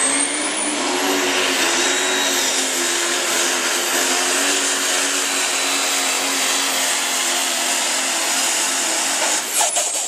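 Super modified 4x4 diesel pulling truck running flat out under load as it drags the sled, with a high turbocharger whistle that climbs in the first second and then holds. A few sharp cracks come near the end.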